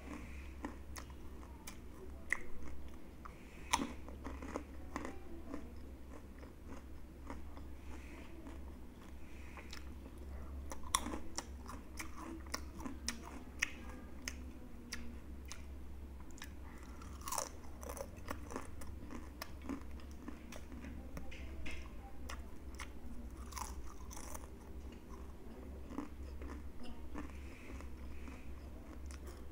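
Close-up crunching and chewing of crisp fried chips, with many irregular sharp crunches, over a low steady hum.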